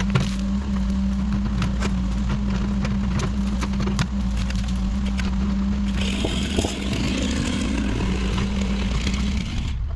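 An engine running steadily with a constant low hum, and scattered short clicks and knocks over it. A hiss joins about six seconds in, and the hum cuts off abruptly near the end.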